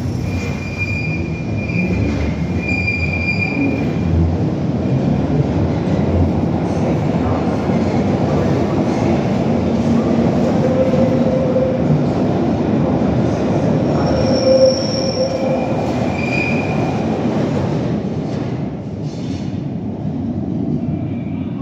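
Bakerloo Line 1972 Stock tube train running out into the tunnel: a loud, continuous rumble of wheels and motors with several high-pitched wheel squeals along the way. The sound fades toward the end as it draws away.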